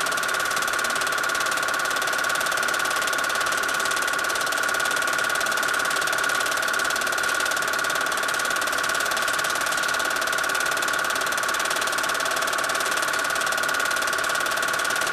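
Home-movie film projector running with a steady, even mechanical whirring clatter.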